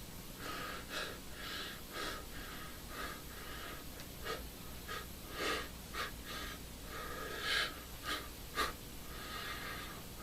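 A person performing breathy vocal effects for a character: a run of wheezing, panting breaths broken by several short, sharp gasps.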